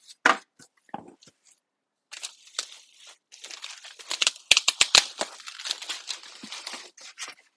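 Plastic packaging bag crinkling and rustling as it is handled in an opened box, with a cluster of sharp clicks about halfway through. A few light knocks of packing come in the first second.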